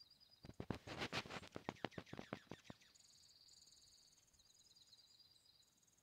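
A quick, irregular run of sharp clicks for about two seconds, the loudest thing here, followed by high, thin, pulsed songbird trills that carry on to the end.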